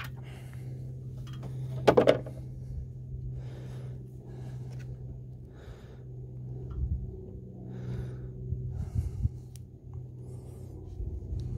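A cloth rag rubbing and wiping around the bar studs and bar-mount pad of a Stihl chainsaw, in short strokes, with one sharp clatter of handling about two seconds in, over a steady low hum.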